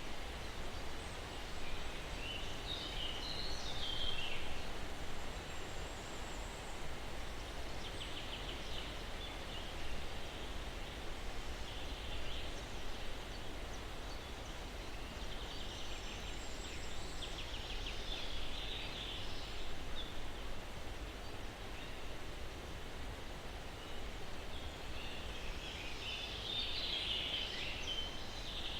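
Steady breeze rustling through pine trees, with distant birds chirping in short bursts every few seconds.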